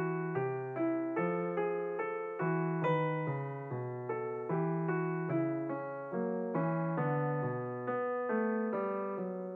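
Background music on a piano-like keyboard: a steady run of notes struck about twice a second, each fading away, over lower bass notes held about a second each.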